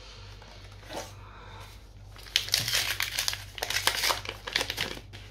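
Foil booster pack wrapper crinkling as it is handled and opened. It is a dense run of crackles lasting about three seconds, starting a little over two seconds in.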